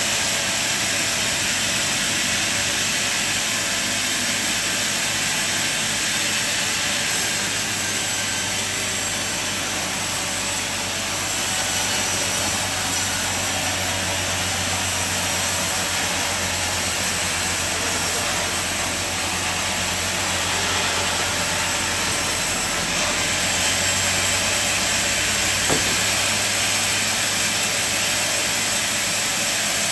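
Sawmill running steadily, a constant hiss from the saw over a low engine hum, with one sharp click near the end.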